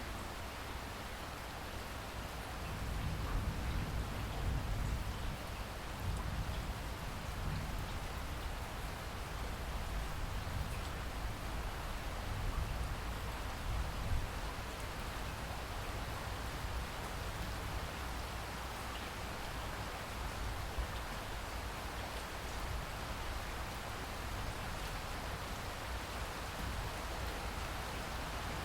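Steady, heavy rain falling as a dense hiss. A low rumble swells a few seconds in and lingers for about ten seconds.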